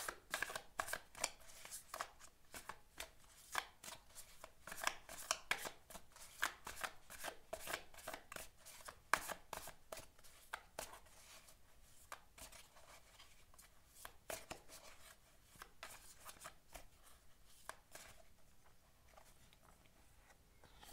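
A deck of tarot cards being shuffled by hand, the cards snapping and sliding against each other in faint, quick, irregular clicks. The clicks thin out and grow weaker in the second half.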